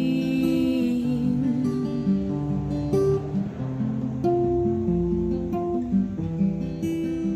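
Acoustic guitar strummed, chords changing every second or so as the song's outro. A woman's held sung note dies away in the first second.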